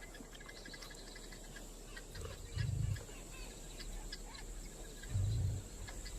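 Outdoor bush ambience: insects with a steady high whine and scattered bird chirps and ticks. Two short low thumps, about two and a half seconds apart, stand out as the loudest sounds.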